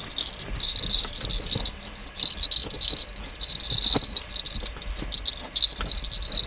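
Crickets chirping in a steady, pulsing trill, with a few soft knocks and rustles as a dog shifts around on the bedding.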